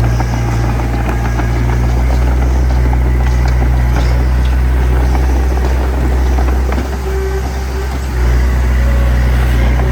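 Diesel engine of a small D20P crawler bulldozer running hard, with metallic clanking from its tracks and blade. The engine eases off briefly about seven seconds in, then picks up again.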